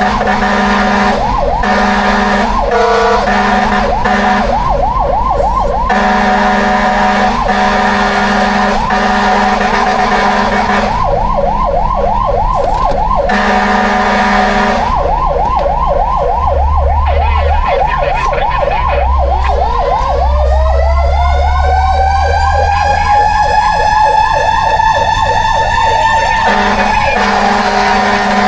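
Fire truck sirens: a fast electronic yelp sounding throughout, together with long steady horn blasts broken by short gaps. About two-thirds of the way through, a second siren winds up in a slow rising wail, levels off, and stops shortly before the end.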